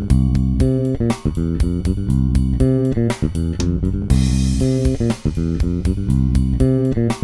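Background music: a groove of plucked bass and electric guitar notes with a steady beat.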